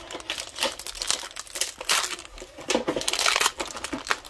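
Foil booster-pack wrapper crinkling and crackling in irregular bursts as it is handled and opened.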